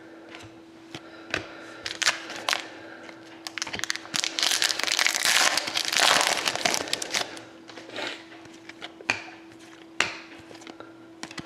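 Die-cut hockey trading cards being handled and flipped through by hand: scattered small clicks and snaps of card stock, with a longer stretch of crinkly rustling in the middle.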